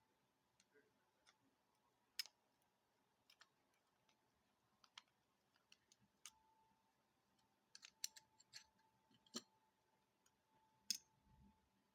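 Faint, scattered clicks and taps of small metal knife parts and a Torx driver being handled while a folding knife is taken apart at the pivot, with a few clicks bunched together near the end.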